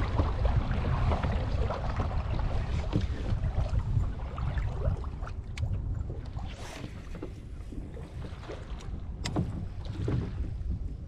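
Wind rumbling on the microphone over water lapping and splashing against a fishing kayak, with a couple of sharp clicks about five and nine seconds in.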